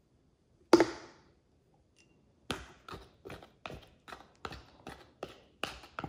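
Spoon knocking and tapping against a metal canning funnel on a glass mason jar, pushing sticky apple pie filling down into the jar: one sharp knock near the start, then a run of about ten quick taps, roughly three a second.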